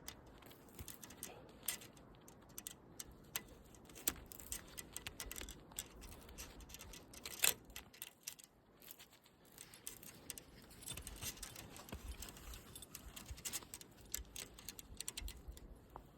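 Faint metallic clicks and light rattling of high-tensile support wire and its wire ties being handled and fitted, with one sharper click about seven and a half seconds in.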